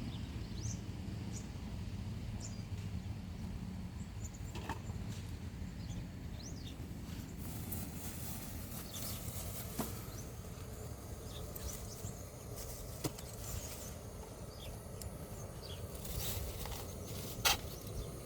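Outdoor ambience: a steady low rumble with scattered short, high chirps and a few sharp clicks.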